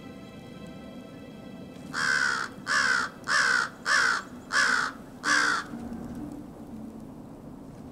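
American crow cawing six times in a quick, even series, each caw harsh and about half a second long.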